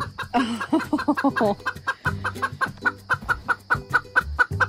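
Silkie hen hollering: a few loud squawks, then a steady run of quick clucks, about five a second. This is the fussing of a hen that wants into her nest box to lay an egg.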